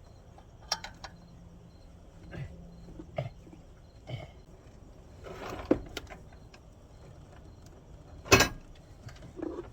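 Scattered clicks and knocks of hands and tools working on parts in a car's engine bay during intake-manifold removal. There is a brief rustle about five seconds in and one sharp, loud clack about eight seconds in.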